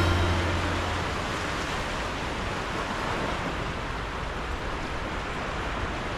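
Small sea waves breaking and washing up a flat sandy shore: a steady hiss of surf. A low note of background music fades out in the first second.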